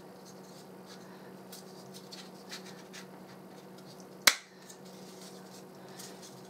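Small taps and scrapes of hands handling the foam fuselage and canopy parts of a model plane, with one sharp click about four seconds in, over a low steady hum.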